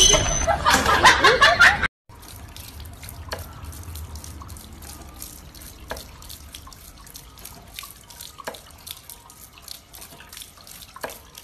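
Loud music for about the first two seconds, cut off abruptly. Then water pours and splashes onto a bamboo water wheel, with a sharp knock roughly every two and a half seconds.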